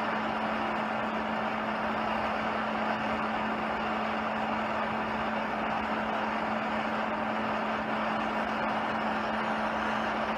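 Handheld gas torch burning with a steady hiss, its flame held on a cast-iron stove leg to preheat the iron before welding.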